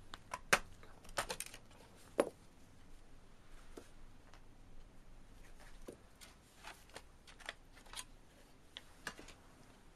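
Scattered light clicks and taps of a screwdriver and gloved hands on the plastic underside of a laptop as its Phillips screws are loosened. The sharpest clicks come about half a second and two seconds in, with fainter ticks after.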